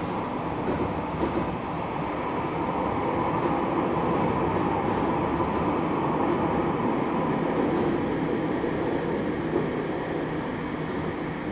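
Cologne tram running, heard aboard: a steady rolling rumble of steel wheels on rails under a faint steady hum, with a few light clicks.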